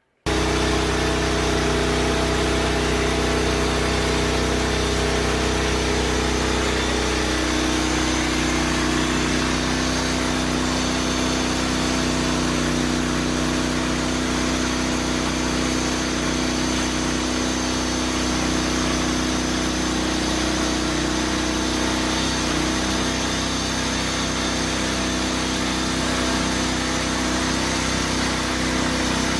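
An engine running steadily at a constant speed, starting abruptly at the beginning, with a slight change in pitch about seven seconds in.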